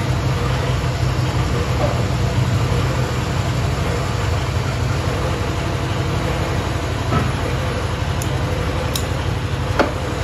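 Metal lathe running steadily with a low hum while a tool cuts a large spinning steel disc, with one sharp click near the end.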